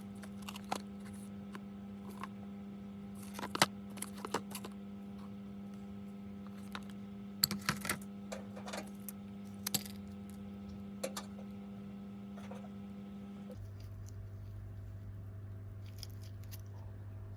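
Scattered light clicks, taps and short crinkles of snack packaging being handled, over a steady electrical hum that drops to a lower pitch about fourteen seconds in.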